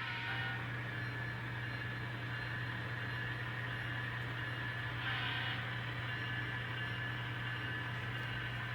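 N scale model locomotive running along the track, a steady motor whine over a constant low hum, briefly brighter about five seconds in.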